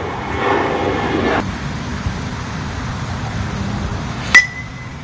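A metal baseball bat hits a pitched ball: one sharp ping about four seconds in, ringing briefly at a single high pitch.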